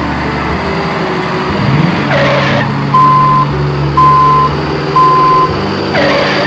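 Reversing alarm beeping three times, about a second apart, over a steady engine hum, with a short hiss before and after the beeps.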